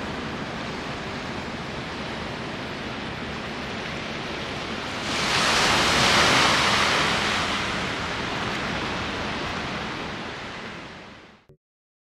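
Strong wind blasting across the microphone: a steady rush that swells into a louder gust about five seconds in, then fades out near the end.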